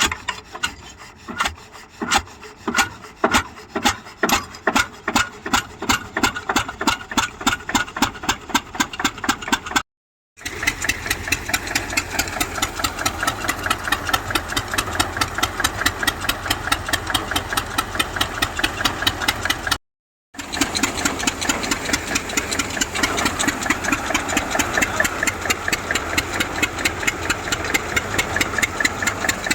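Engine of a groundnut threshing machine starting up after a failed first attempt: slow, heavy thumps that quicken over the first ten seconds, then running at a steady fast chug. The sound drops out abruptly twice, about ten and twenty seconds in.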